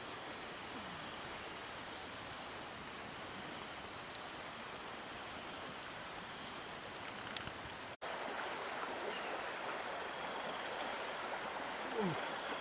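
Steady rushing of a flowing stream, with a few faint crackles from a campfire. Near the end come two short, low falling sounds.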